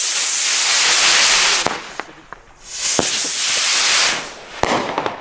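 Two Weco Indianapolis skyrockets launching one after the other, each a loud rushing hiss lasting about one and a half seconds, the second about a second after the first dies away. A few sharp cracks sound between the launches and near the end.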